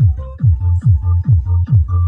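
Electronic dance music played loud through a freshly repaired Altec Lansing subwoofer: a heavy kick drum a little over twice a second, each hit dropping quickly in pitch, over a deep bass line.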